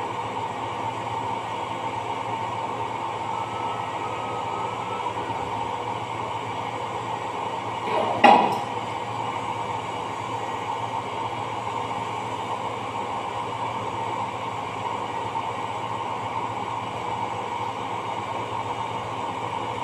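Steady machine hum with a faint steady whine in it, broken once about eight seconds in by a single sharp knock.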